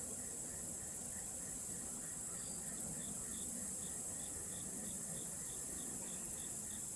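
Insect chorus: a steady high-pitched hiss with cricket-like chirps repeating about three times a second. A higher-pitched chirping series takes over about two seconds in and stops near the end.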